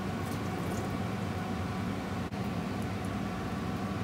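Steady hum and hiss of a kitchen range hood exhaust fan running over the gas hob.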